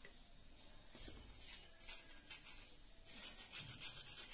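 Faint scraping of a table knife against an Oreo cookie, scraping the white cream filling off the biscuit in a series of short strokes, with a light knock about a second in.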